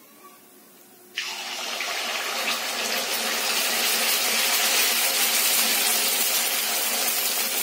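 A ladleful of rice batter hits hot oil in a kadai: a sudden sizzle about a second in that builds briefly, then keeps on as a steady loud frying hiss.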